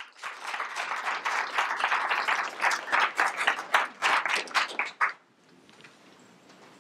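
Audience applauding, the clapping stopping about five seconds in and leaving quiet room tone.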